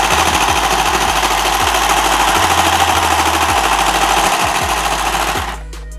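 Battery-operated pink plastic 'Delight' toy sewing machine running and stitching cloth, its needle mechanism chattering rapidly; it stops near the end.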